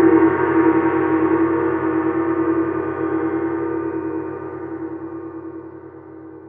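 The last chord of a brass-band song ringing out after its closing hits, many tones held together with a slight wobble and slowly dying away.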